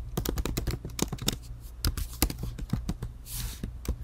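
Typing on a computer keyboard: quick, irregular key clicks as a line of code is typed, over a low steady hum.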